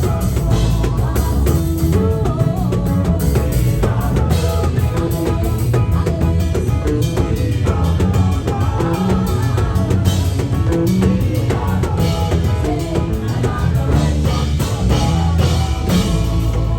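Live gospel band music, with a drum kit keeping a steady beat over a heavy bass.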